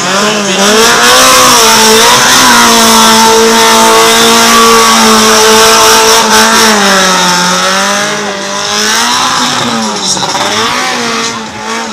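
Fiat 127 race car's engine being revved hard, its pitch rising and falling again and again as the car accelerates and brakes through a tight cone course. It runs loud and close for most of the stretch, then grows fainter near the end as the car pulls away.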